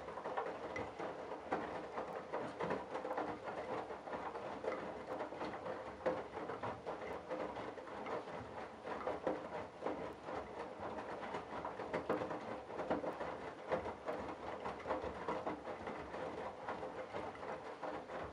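Candy Bianca washing machine in its wash phase, the drum turning and sudsy towels sloshing and tumbling in the water: a steady churning with soft irregular thumps.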